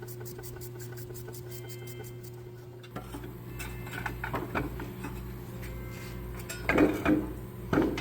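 Hand tools and metal engine parts clicking and clinking during an engine teardown, with two louder clatters about seven seconds in, over a steady low hum.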